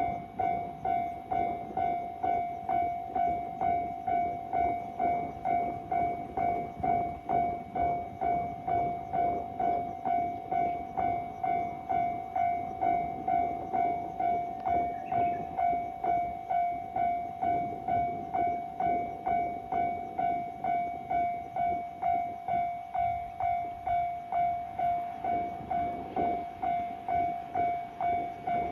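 Japanese level-crossing alarm sounding its electronic bell, a repeating clang a little under twice a second. Underneath runs the rumble and clatter of a passing train.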